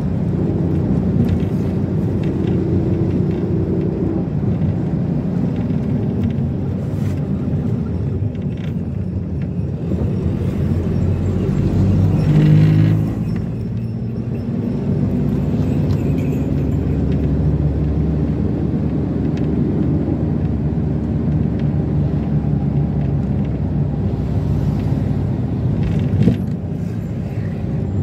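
Minivan driving along the road: steady engine running and road rumble. The engine swells louder about twelve seconds in, then drops back suddenly, and there is a short knock near the end.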